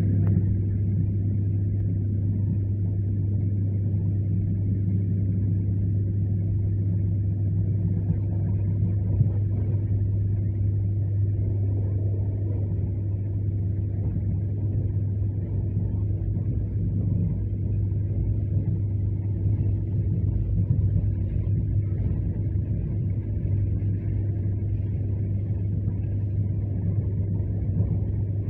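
Steady rumble of an ER9M electric multiple unit running at speed, heard from inside the passenger carriage, with a constant low electrical hum under it.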